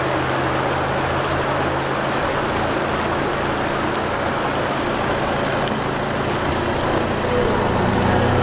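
Flowing river water rushing steadily while an Isuzu 4WD drives slowly through the crossing, its engine a low, steady drone underneath. Music fades in near the end.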